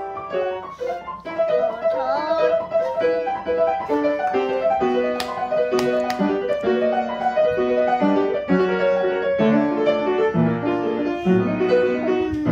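Background piano music playing a simple tune of separate notes.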